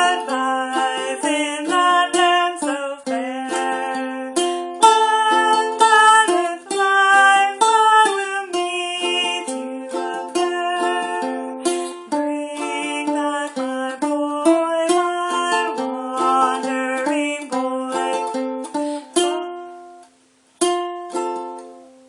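Ukulele played clawhammer style, a run of plucked melody notes over ringing strings. Near the end the playing thins out and stops briefly, then a few last notes ring out.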